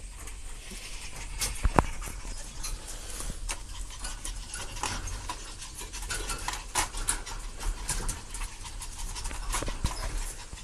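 Puppies playing on a hard floor: a steady scatter of small clicks and taps, with one sharper knock a little under two seconds in.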